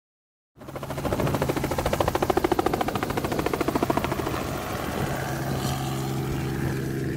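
Helicopter's two-bladed main rotor turning at close range, giving a fast, even beat of about eight pulses a second over a steady engine hum. After about four seconds the beat fades into a steadier hum.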